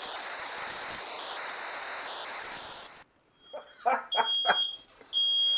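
A steady hiss for about three seconds that cuts off suddenly. After it comes a few short bursts of noise, then a smoke alarm sounding two long, high-pitched beeps.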